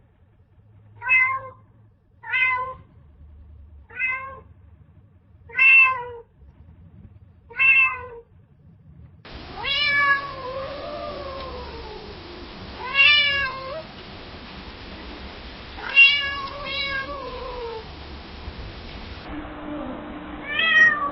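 Domestic cat meowing: five short meows about a second and a half apart, then a run of longer, drawn-out meows that fall in pitch at the end, over a background hiss.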